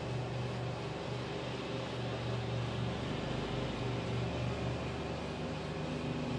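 A motor running steadily: a constant low hum over an even hiss.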